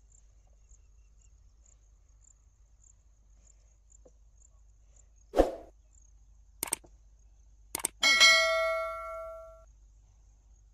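Subscribe-button overlay sound effects: a thud, then two quick mouse clicks, then a notification bell ding that rings out and dies away over about a second and a half.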